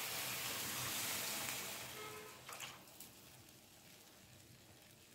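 Tamarind water poured into a hot pan of sautéed vegetables, sizzling and then dying away after about two and a half seconds, with a light knock just before it fades.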